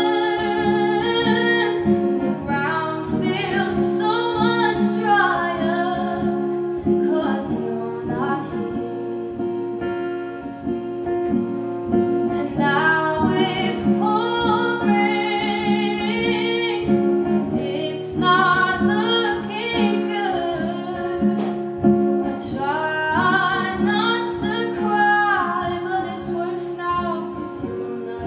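A woman singing a song to her own acoustic guitar accompaniment. The guitar plays on alone through a short break in the vocal line about ten seconds in.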